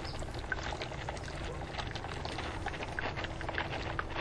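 HHO electrolyzer cells running, gas fizzing and bubbling steadily through the water as a dense crackle, over a faint steady hum.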